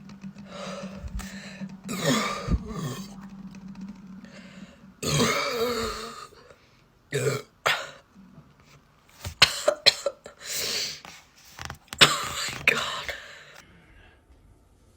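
A girl burping and clearing her throat in a string of short bursts after gulping fizzy soda, with a longer burp about five seconds in.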